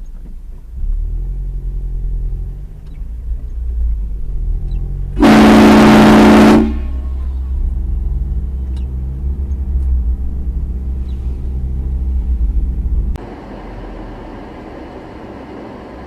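A vehicle's low engine and road rumble, with one long, very loud horn blast about five seconds in lasting about a second and a half.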